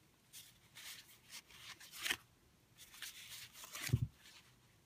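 Stiff paper cards rustling and sliding against each other as they are handled and flipped through, in several short soft bursts, with a low thump about four seconds in.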